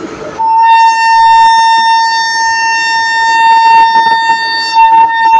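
Horn of a WAP-7 electric locomotive sounding one long steady blast of about five seconds, starting about half a second in: the departure signal as the train gets the green flag to leave.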